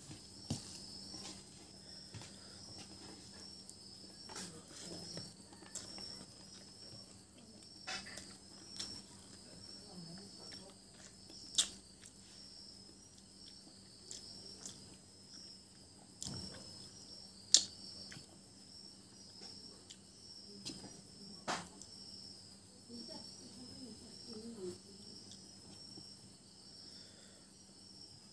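Crickets chirping in a continuous pulsing trill, over a faint low hum. Over it come scattered sharp clicks and soft wet sounds of a hand mixing rice and fish curry on a plate, with a few clicks louder than the rest.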